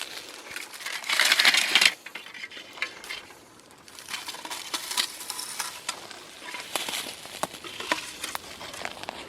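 Crinkling and crackling of plastic and paper litter being picked up and handled, with small clicks and rustles throughout and a louder burst of crinkling about a second in.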